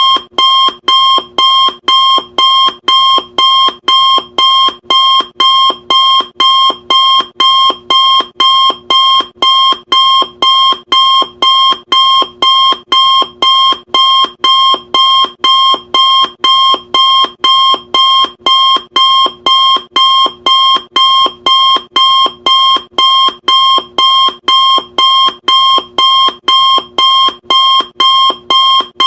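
Loud electronic timer alarm beeping in a steady repeating pattern, about two short, high-pitched beeps a second.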